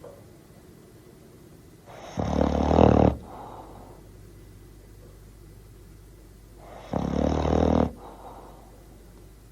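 Bull terrier snoring: two loud snores about a second long, roughly five seconds apart, each trailing into a softer breath.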